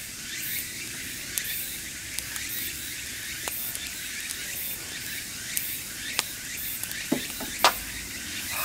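Wood campfire crackling, with scattered sharp pops, the loudest a little before the end, over a steady chorus of evening insects chirping.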